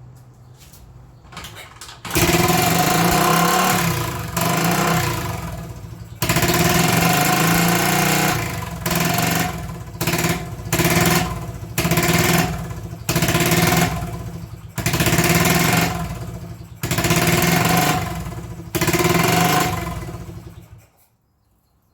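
1980 Honda XL250S single-cylinder four-stroke engine running away at high revs, cut and caught again about ten times by the kill switch, then stopping near the end. The engine races on its own after a starter-fluid start; the owner wonders whether its idle is set much too high.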